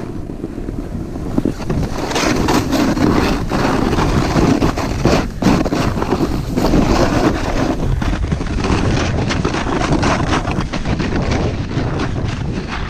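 Snowboard sliding and scraping over snow on a steep descent, with rapid edge chatter and wind rushing over the microphone; the level rises about two seconds in as the board picks up speed.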